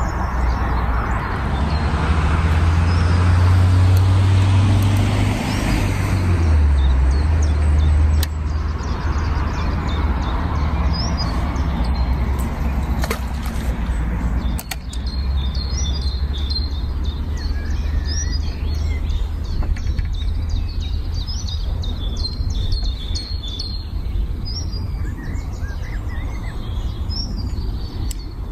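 Small birds chirping in many short, quick calls over a steady low rumble, with a louder rushing noise in the first several seconds.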